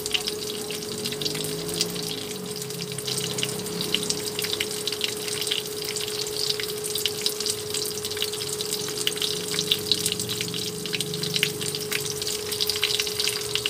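Shallots, garlic and ginger frying in hot oil in a frying pan, a dense sizzle with many small crackles and pops, over a steady hum.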